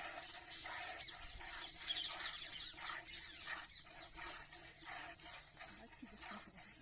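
Milk squirting into a pail during hand milking of a cow, in a steady rhythm of about two squirts a second, one louder than the rest about two seconds in.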